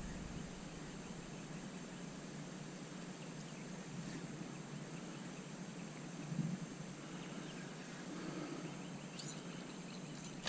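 Quiet outdoor marsh ambience dominated by a steady, high-pitched insect drone, with a single soft low bump about six seconds in.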